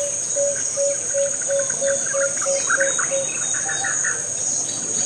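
Steady high-pitched insect drone, with a bird repeating one short note about three times a second for the first three seconds and other birds chirping.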